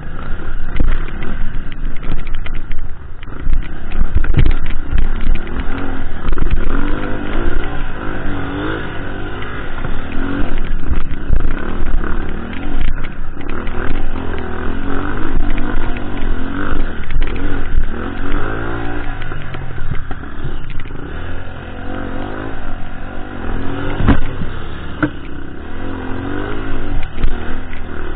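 Dirt bike engine revving up and down again and again as it is ridden over a rough trail, with rattles and knocks from the bumps and one sharp knock near the end.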